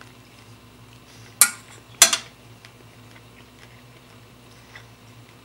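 Metal fork striking a white ceramic dinner plate: two sharp clinks about half a second apart, each ringing briefly.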